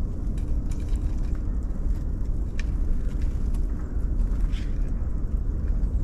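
Wind buffeting an action camera's microphone, a steady low rumble that flutters in strength, with a few faint high ticks over it.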